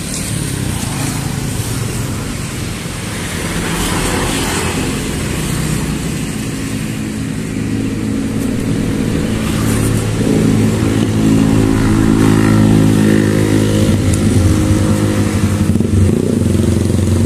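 Motorcycle engine running steadily close by, a low hum that grows louder about ten seconds in.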